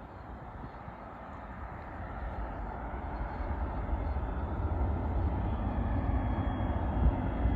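Jet engines of a Boeing 757-200 (Pratt & Whitney PW2037 turbofans) on approach, a rumbling roar growing steadily louder as the airliner nears, with a thin high whine coming in near the end.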